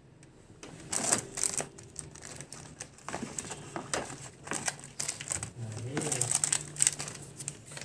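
Clear plastic box with a hinged lid being handled: a run of irregular clicks, knocks and rattles, with rustling of small items on a shelf.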